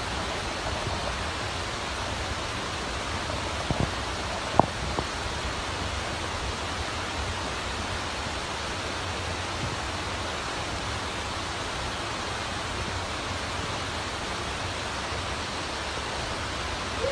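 Steady, even hiss of background noise, with a few short clicks about four to five seconds in.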